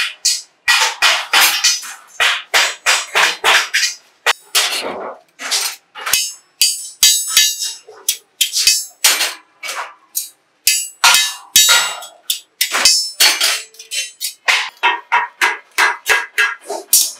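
Irregular metallic clanks of small galvanized sheet-steel pieces being hammered and handled on a steel bar, a few strikes a second, each ringing briefly.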